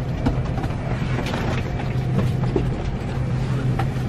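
Steady low hum of an Airbus A321-200 cabin's air system, with scattered clicks and knocks as passengers stand and open the overhead bins.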